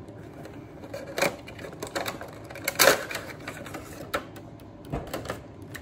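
A cardboard Funko Pop box being opened and its clear plastic insert pulled out: irregular clicks and crackles of handled cardboard and plastic, loudest about three seconds in.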